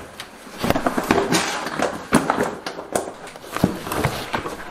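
Stiff plastic Ditra underlayment membrane rustling and crackling as it is handled and bent, with many irregular clicks and snaps.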